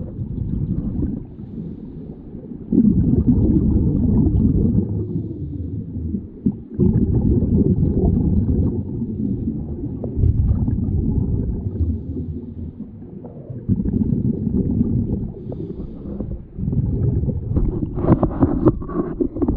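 Scuba divers breathing through regulators underwater: exhaled bubbles rumbling in muffled bursts of about two seconds, roughly every three to four seconds, with a few sharp bubble crackles near the end.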